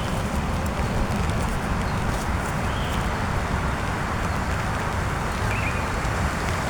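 Heavy rain beating steadily on a tent in strong wind, with a low rumble of wind underneath. A couple of faint short high chirps come through, one near the middle and one near the end.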